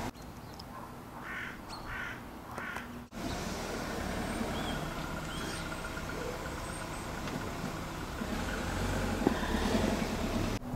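Outdoor street ambience: a vehicle going by, its rumble growing near the end, with a few short bird calls.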